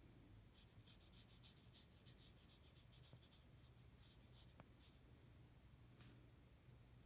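Marker tip scratching faintly on paper in a quick run of short strokes, then a single stroke near the end.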